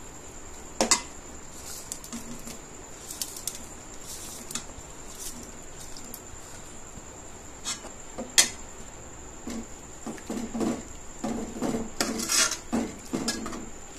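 Steel ladle and plate clinking and scraping against a metal cooking pot as sliced bitter gourd is added to the gravy and stirred. A few sharp clinks come singly, about a second in and again about eight seconds in, then a run of stirring clatter fills the last few seconds.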